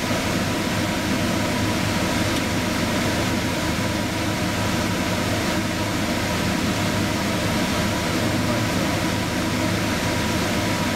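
Cola boiled down to a thick sugar syrup, bubbling hard in a stainless saucepan on an electric coil burner: a steady rushing noise with a low hum underneath.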